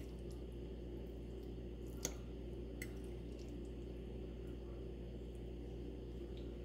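A metal fork working food on a plate, with one sharp clink on the plate about two seconds in and a lighter tap a little later, over a steady low hum.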